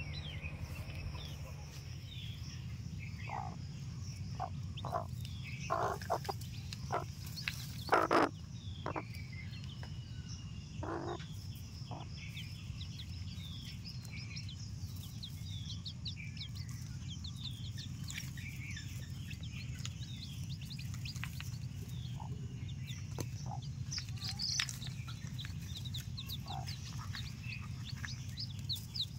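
Newly hatched chicks peeping: many short, high cheeps all through. A hen's lower clucks come several times in the first half, over a steady low hum.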